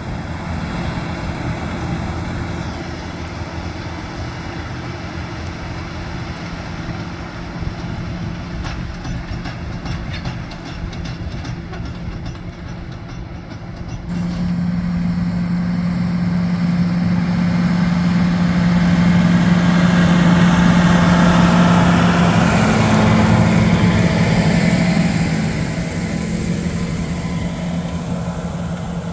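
John Deere 8400R tractor's diesel engine running steadily under load as it pulls a 2680H disk ripper through stubble. It is a constant low drone that turns louder about halfway through as the rig comes close, then eases off a little near the end.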